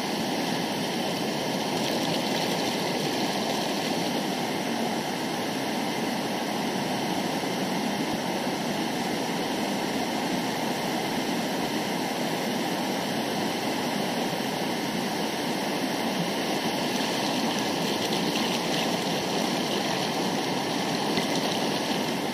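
Fast mountain river rushing over boulders and through a small cascade: a steady, unbroken rush of water.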